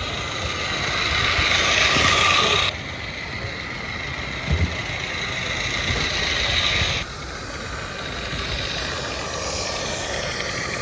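Roundhouse 32mm live-steam saddle-tank locomotive hissing steam as it runs. The sound drops suddenly twice, and there is a short double knock about halfway through.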